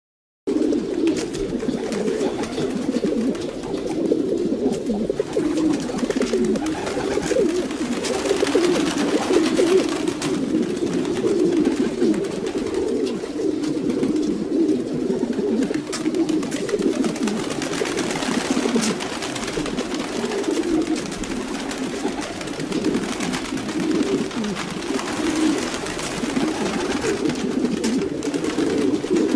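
A flock of domestic pigeons cooing, many low coos overlapping into a steady chorus, after a split-second break at the very start.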